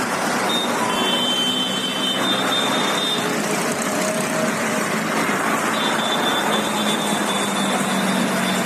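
A column of tractors driving past on a road, their engines making a steady, continuous traffic noise.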